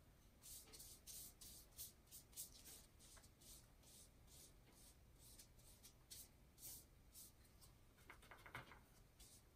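Faint scratchy swishes of a paintbrush stroked back and forth across Tyvek paper as ink is laid on, quick strokes for the first few seconds, then slower ones. Near the end comes a short cluster of scrapes and taps as the brush is worked in the palette.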